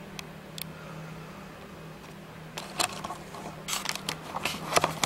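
A steady low hum, and from about halfway in, a run of irregular clicks and crackles that grows busier toward the end.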